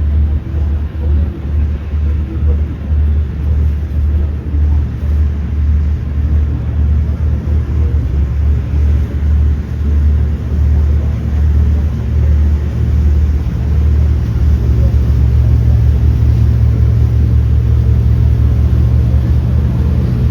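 Steady low rumble of a motor vehicle running, growing a little louder and steadier about two-thirds of the way through.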